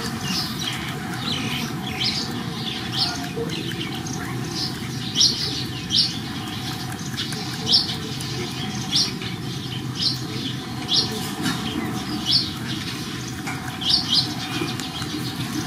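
Newborn puppies squeaking in short, high-pitched cries, about one a second and irregularly spaced, while a baby macaque handles them.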